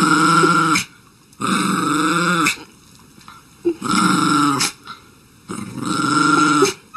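A dog growling in four drawn-out growls, each about a second long, with pauses between them.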